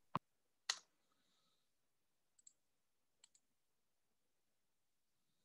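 Near silence broken by a few sharp clicks: two clear ones within the first second, then two fainter double clicks.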